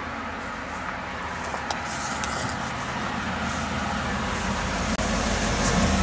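1982 Pontiac Trans Am's V8 through an Edelbrock SDT exhaust, rumbling as the car drives up at low speed and grows louder as it pulls alongside.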